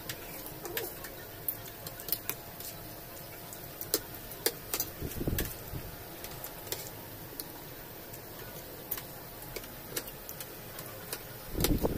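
Metal forks and spoons clicking and scraping against ceramic plates as two people eat: scattered light clicks. A short low sound comes about five seconds in and again near the end.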